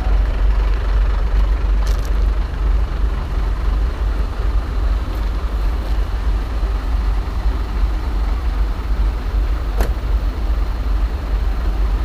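Hino 500 truck's diesel engine running steadily, a deep low rumble. Two light clicks come through, about two seconds in and near ten seconds.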